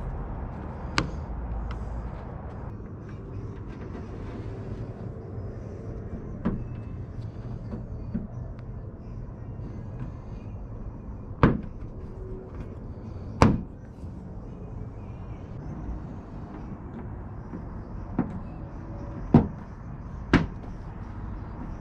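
A handful of sharp, separate knocks and clicks, the loudest two about a third and two thirds of the way through, over a steady low hum: parts being handled and fitted during car reassembly.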